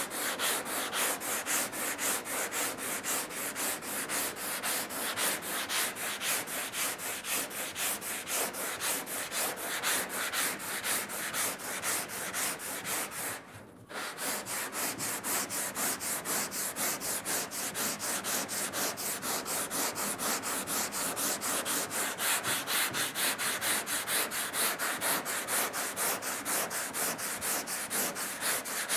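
Hand block sanding cured body filler with 80-grit paper: a steady rasping scrub of rapid back-and-forth strokes, several a second, broken by a short pause about halfway through. This is the levelling stage, cutting down the high spots of the filler.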